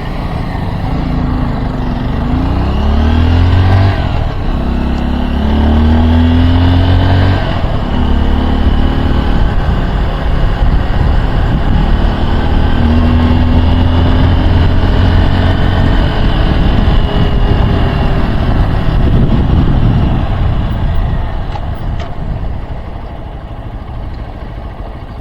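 Honda XR150L single-cylinder motorcycle engine accelerating under way: its pitch climbs over the first few seconds, drops back at gear changes about 4 and 7.5 seconds in, holds steady at cruise, then falls away near the end as the bike slows. Wind rushes over the microphone throughout.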